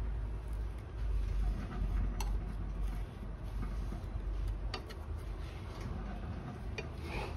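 Wooden chopsticks pushing a sheet of kitchen paper across an oily nonstick frying pan, with a soft wiping scrape and a few scattered light clicks of the chopsticks against the pan over a low steady hum.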